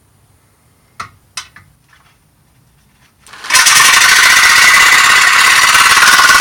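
A few sharp clicks about a second in, then from about three seconds in a Silverline 710-watt jigsaw with a Bosch T118G high-speed steel blade starts cutting a sheet-steel rib. It makes a loud, steady, harsh buzz, and runs at its slow speed setting.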